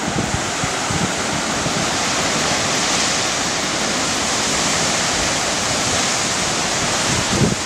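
Ocean surf surging and churning through a rocky chasm, a steady rushing that swells a little in the middle, with wind buffeting the microphone in low gusts near the start and again near the end.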